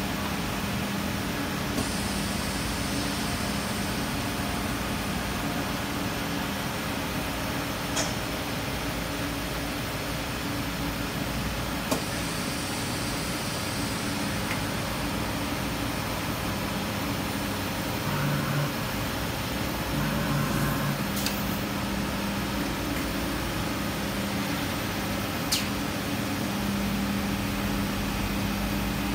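Makino sinker EDM machine running with a steady hum and a low drone, with a few faint clicks scattered through it.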